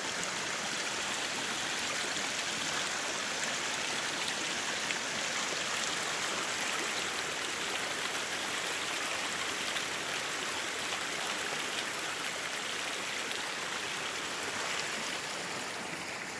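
Small rocky forest creek running steadily over stones and through riffles. It gets slightly quieter near the end as the view turns away from the water.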